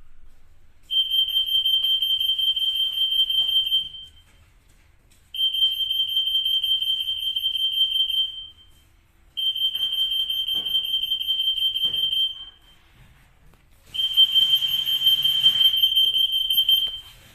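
RF EAS anti-theft antenna gate alarm going off in four blasts of about three seconds each, a steady high-pitched tone, signalling that an active security tag has been detected between the antennas.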